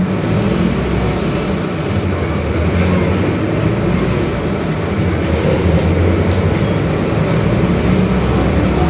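Mercedes-Benz OF-1721 Bluetec 5 bus chassis under way: a steady diesel drone, swelling slightly a few times, with the differential growling.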